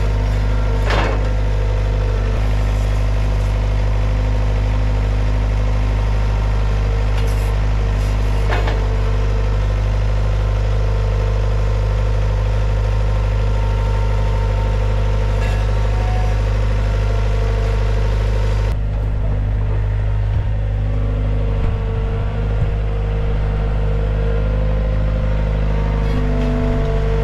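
Gehl CTL60 compact track loader's diesel engine running steadily at idle, with a couple of brief knocks in the first third.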